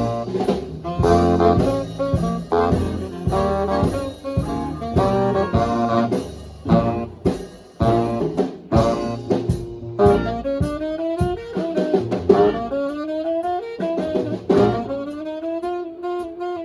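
Live swing band playing: rhythmic chord stabs over bass and drums, then from about ten seconds in a horn takes a lead line with bending, sliding notes.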